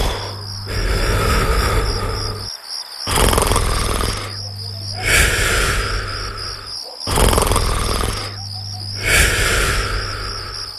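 Snoring, one loud rasping, rumbling breath about every four seconds, over crickets chirping steadily.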